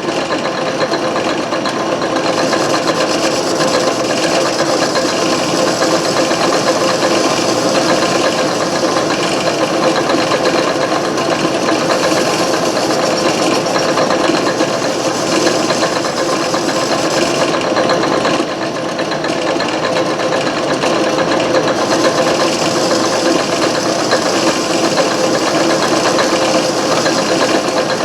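Antique Garvin lathe running steadily, with a cutting tool turning down a piece of stock: a steady machine hum under a dense, rattly cutting hiss. The hiss drops away briefly about two-thirds of the way through, then resumes.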